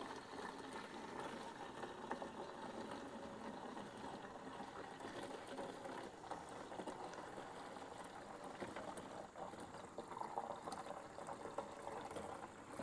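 Liquid draining in a steady pour out of a Honda CT90's small steel fuel tank as it is tipped, emptying the rust-treatment solution it was soaking in; the tank's spout makes it awkward to pour.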